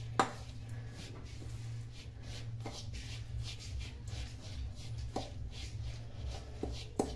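Steel spoon stirring dry, coarse ground spice mix in a stainless steel bowl: soft scraping and rustling of the powder, with a few light taps of the spoon against the bowl, over a low steady hum.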